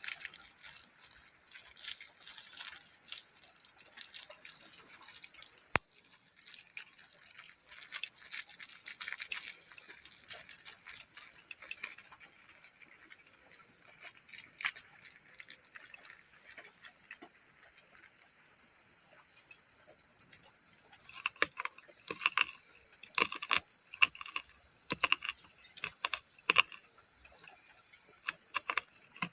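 Steady night chorus of crickets, a continuous high-pitched shrilling. There is one sharp click about six seconds in, and a run of sharp clicks and knocks in the last third.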